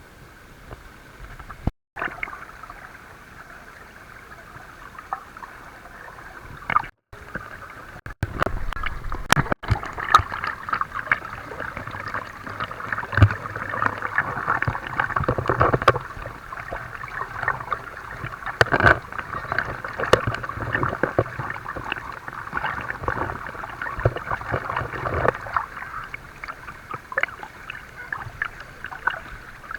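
Water in a shallow river rushing and splashing, with many irregular splashes.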